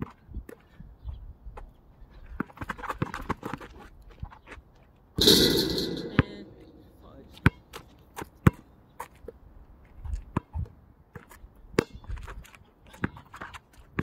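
Basketball dribbled on an outdoor asphalt court: sharp, irregular thuds of the ball hitting the ground. About five seconds in comes one louder, rushing burst lasting about a second.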